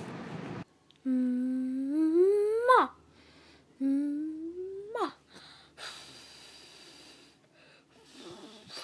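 A woman humming with her mouth closed: two long notes, each sliding up in pitch and ending in a quick drop. Wind noise on the microphone is heard briefly at the start before it cuts off.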